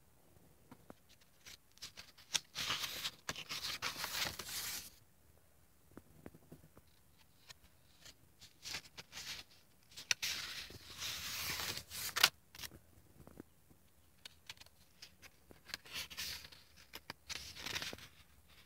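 Stiff, paint- and collage-covered pages of a spiral-bound art journal being turned by hand, rustling and crackling in three bursts of a couple of seconds each, with light clicks and taps of paper handling in between.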